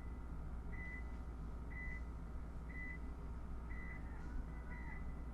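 Paintball field start timer beeping a countdown: short high beeps about once a second over a steady low hum, ticking off the last seconds before the start horn.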